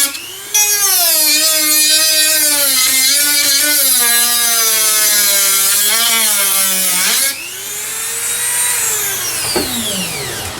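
Dremel rotary tool grinding an indentation into a table saw insert, its motor pitch sagging and wavering as it bites in. About seven seconds in it is switched off and winds down in a long falling whine.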